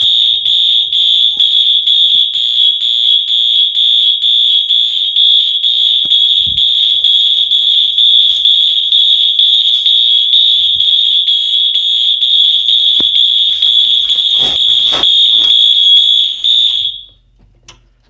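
Wheelock MT fire alarm horn sounding its high-pitched march-time horn tone, loud, with the system in alarm from a pulled manual station. A few knocks come near the end, then the horn cuts off suddenly about seventeen seconds in.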